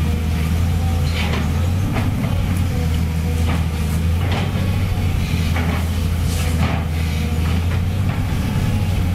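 Volvo EC210B excavator's diesel engine running steadily under working load as the bucket digs into demolition rubble, with scattered scrapes and knocks of debris against the bucket.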